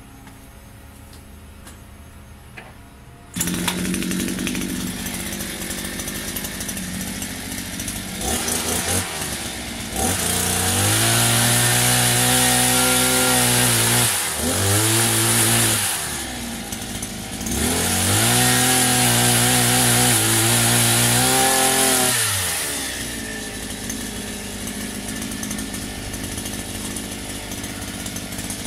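Small petrol engine of a multi-tool fitted with a pole chainsaw attachment starts about three seconds in and idles, then is run at high revs in two long spells with dips between, and drops back to idle for the last few seconds.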